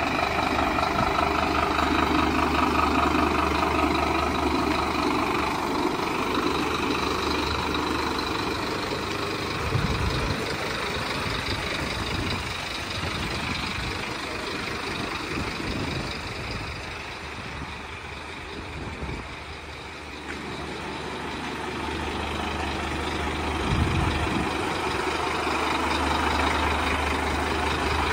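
Scania P230 tanker's five-cylinder diesel engine idling steadily, growing quieter for a few seconds about two-thirds of the way through, with a couple of brief low thumps.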